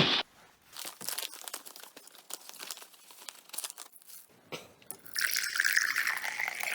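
Light crinkling and small clicks as coffee is handled, then liquid pouring into a cup from about five seconds in, its pitch sliding downward as it runs.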